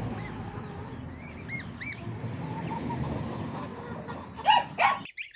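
Domestic goslings peeping: a few soft arched peeps, then two loud ones near the end.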